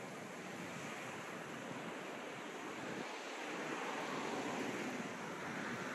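Steady rushing wind noise, swelling a little about four seconds in.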